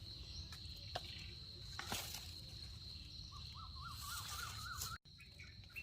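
Faint forest ambience: a steady high insect drone under scattered clicks and rustles, with a short wavering, warbling call a little past the middle.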